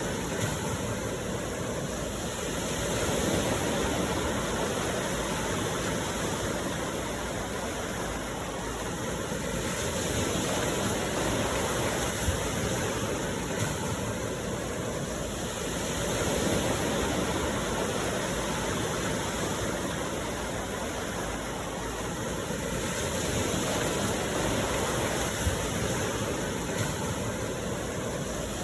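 Steady rain falling, a dense even hiss that swells and eases slowly every several seconds, with a few faint sharp ticks.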